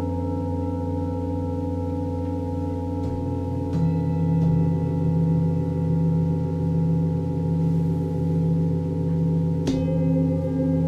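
Several singing bowls ringing together in long overlapping tones that waver with a slow pulse. A fresh bowl is struck about four seconds in, adding a strong lower tone, and another is struck near the end.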